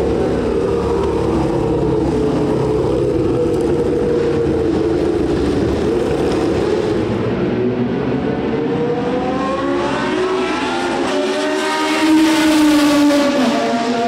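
Racing car engine running at speed on the circuit. Its pitch holds fairly steady at first, then rises as the car closes in, and it is loudest about twelve seconds in as it passes, the pitch dropping right after.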